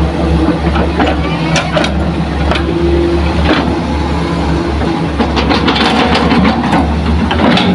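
Heavy diesel engine of earthmoving machinery running steadily, with scattered short knocks and clatters over it.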